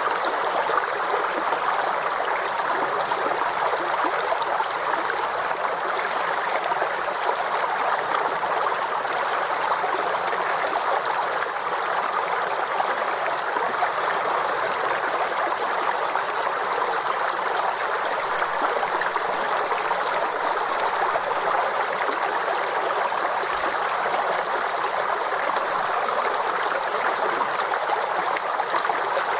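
Forest stream, water flowing and burbling over stones in a steady, even rush.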